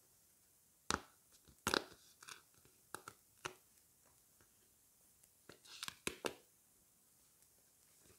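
Paper sticker packet being torn open by hand, with short sharp crinkling rips: several in the first three and a half seconds, then a quick flurry of crackles about six seconds in.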